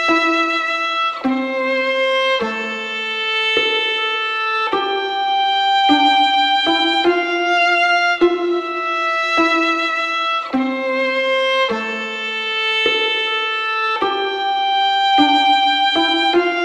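Background music: a single string-like instrument playing a slow melody, with a new sharply-struck note about once a second, each note held until the next.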